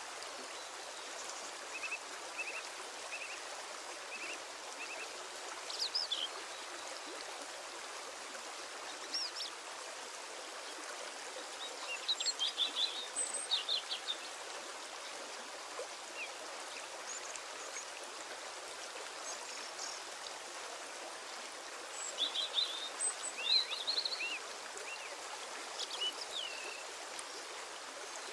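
Steady rushing of running water with bird chirps scattered through it, short quick calls that come in small clusters and are loudest about halfway through and again near the end.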